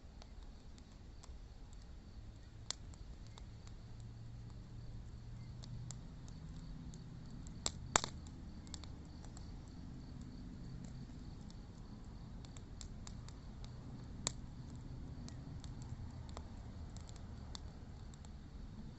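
Wood fire crackling, with sparse sharp pops from the burning wood; the loudest is a quick pair about eight seconds in.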